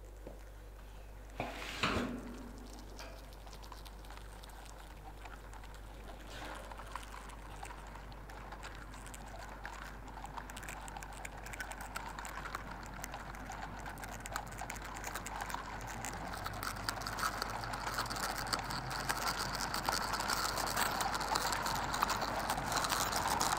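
Horror sound design for writhing maggots: a dense crackling, clicking texture that swells steadily louder, over a steady low hum. A single sharp hit with a short ringing tail comes about two seconds in.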